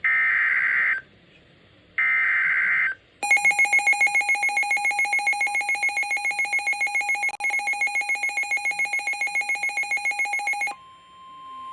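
Emergency Alert System weather radio alert: two one-second bursts of the screeching SAME digital header tones, then a loud, rapidly pulsing electronic alert tone for about seven seconds. Near the end this gives way to a steady, quieter single tone, the weather radio warning alarm tone.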